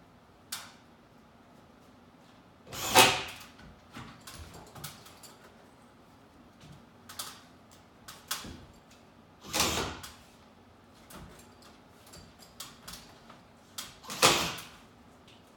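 A drill driving drywall screws up through a ceiling sheet, in three short bursts, with small knocks and clicks of handling in between.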